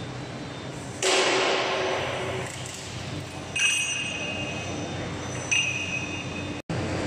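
Steady hum of a CNC stretch bending machine in a workshop, with a sudden rush of noise about a second in that fades away. Two high electronic beeps from the machine's control panel follow, one lasting about a second and a shorter one near the end.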